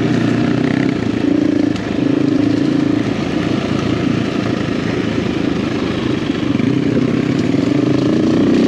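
Husqvarna FE350 single-cylinder four-stroke dirt-bike engine running under way, its pitch rising and falling with the throttle and dipping briefly just before two seconds in. A steady rush of wind and tyre noise runs under it.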